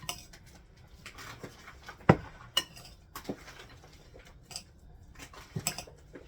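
A spoon knocking and scraping against a bowl while mixing chicken salad, with a handful of sharp, irregularly spaced clinks.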